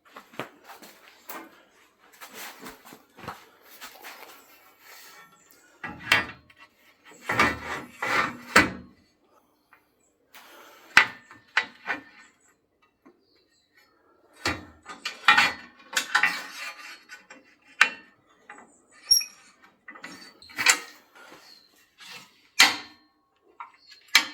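Irregular clanks, knocks and rattles of metal parts and tools being handled and set down, some in quick clusters, with no power tool running.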